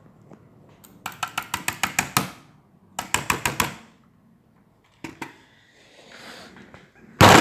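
Two bursts of rapid, sharp clicks, about eight a second, then a few scattered clicks and a loud thump near the end.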